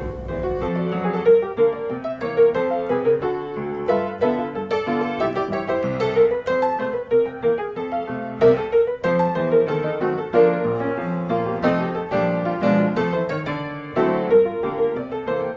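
Background piano music: a tune of quick notes.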